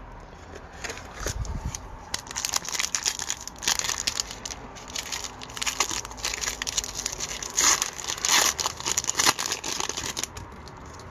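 Foil wrapper of a hockey card pack being torn open and crinkled by hand: a long run of sharp crackles, loudest about eight seconds in.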